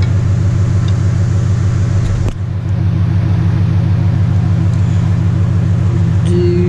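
A steady, loud low mechanical rumble like a running engine, with one sharp click a little over two seconds in.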